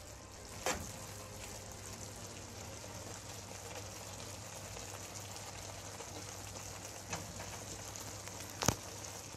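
Steamed cabbage with sliced sausage and peppers sizzling steadily in a frying pan, with a few sharp clicks of a metal spoon against the pan, the loudest just before the end.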